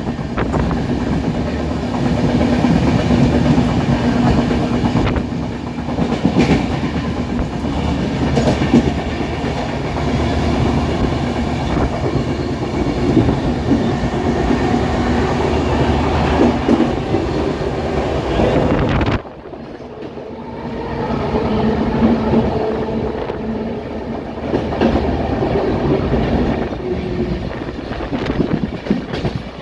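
Passenger train running at speed, heard from an open coach doorway: a steady rumble with the clickety-clack of wheels over rail joints. Near the start a steady hum rides on the rumble, and about two-thirds of the way through the sound drops off suddenly, then builds back up over a couple of seconds.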